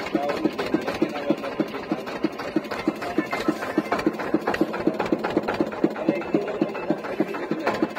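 Boat engine running with a steady beat of about five thuds a second.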